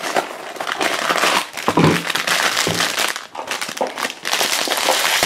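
A cardboard blind box being opened, then a foil blind bag crinkling loudly as it is handled and pulled open.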